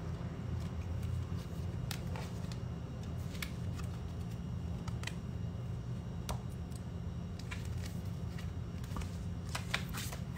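Light handling of a tarot card in the fingers: a dozen or so scattered small clicks and ticks over a steady low background hum.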